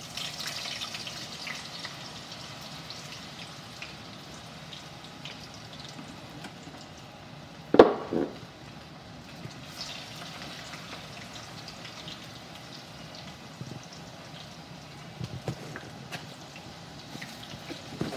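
Raw potato strips frying in hot oil in a metal kadai: a steady sizzle, brighter just after the strips go in. A single sharp knock about eight seconds in.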